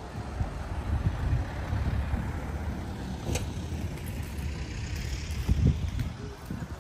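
Low, uneven outdoor rumble with a single sharp click a little over three seconds in.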